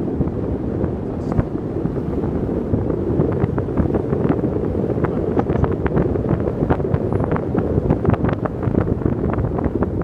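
Wind buffeting the microphone of a phone in a moving car, over a steady rumble of road noise, with many short sharp clicks scattered throughout.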